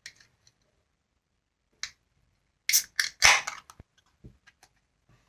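A beer being opened for pouring: a few light clicks of handling, then about three seconds in a sharp crack followed by a short hiss of escaping gas.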